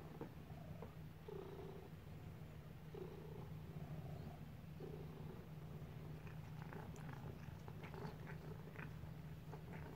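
Calico cat purring steadily with a low rumble that swells and eases every second or two, with a few soft clicks and scratches in the second half.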